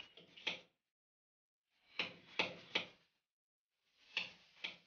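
Club hammer striking a cold chisel held on a concrete interlock brick, about six sharp taps in small groups with pauses between, cutting away the brick's top portion so it fits the corner joint.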